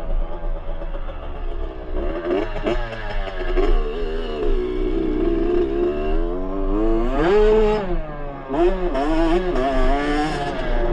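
A 2022 Yamaha YZ65's 65cc two-stroke single-cylinder engine, revving up and backing off as the bike is ridden around a dirt track. The engine pitch rises and falls repeatedly, with a sharp rev-up and drop about seven seconds in.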